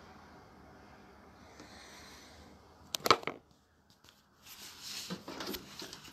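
Phone handling noise: faint room hiss, then a cluster of sharp knocks about three seconds in, followed by irregular rubbing and bumping against the phone's microphone.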